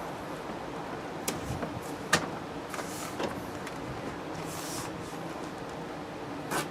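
Hands working at a pickup truck door's edge: a few sharp light clicks and two short, high rasping scrapes over a steady background hiss.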